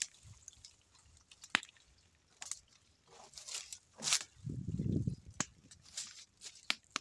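A brush loaded with a hot tar mixture is daubed onto a sawn timber beam: wet, squishy strokes and scattered light clicks. A short low rumble comes about two-thirds of the way in.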